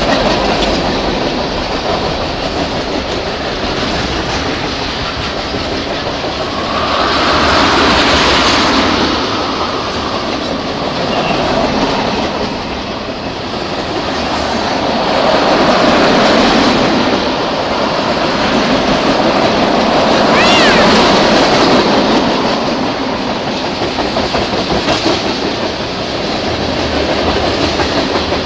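Freight train cars rolling past close by: a steady rumble and clatter of steel wheels on the rails that swells and eases as the cars go by, with one brief high squeal about two-thirds of the way through.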